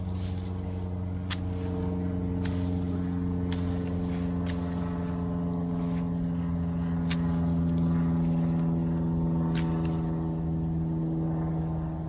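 A steady low engine drone of several held tones, swelling slightly past the middle, with sharp snips of hand loppers cutting brush every second or two.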